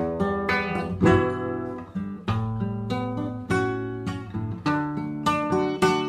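Nylon-string classical guitar playing an instrumental interlude, with plucked chords and single notes several times a second and no singing.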